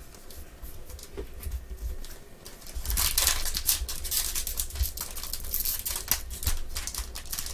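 Plastic trading-card pack wrapper crinkling and crackling as gloved hands open it, starting about three seconds in. Before that there is only faint handling of cards.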